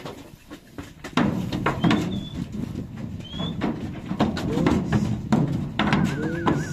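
Cattle clambering into a cattle truck's compartment, hooves knocking and scraping on the floor's metal bars and banging the slatted sides, with many loose knocks from about a second in.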